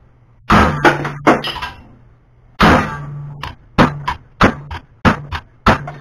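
A 4-pound sledge hammer strikes an O1 tool-steel throwing knife held in a bench vise, about a dozen sharp metal blows at uneven spacing, some in quick pairs, each with a brief ring. The blows shock-load the blade in a toughness test that bends it.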